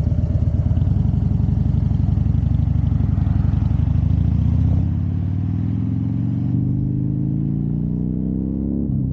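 Harley-Davidson Fat Bob's V-twin engine pulling the bike along, heard from the rider's seat with its heavy pulsing beat. Its pitch drops about halfway, climbs steadily as the bike accelerates, then drops again near the end, like upshifts through the gears.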